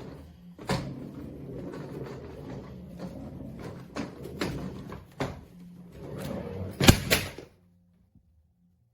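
Hard-shell cabin suitcase being handled: rustling and clattering with several sharp knocks, the loudest two close together near the end, then the sound stops.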